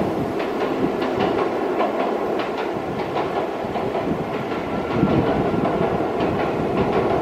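Freight train rolling past, with its wheels clacking over the rail joints again and again over a steady rumble.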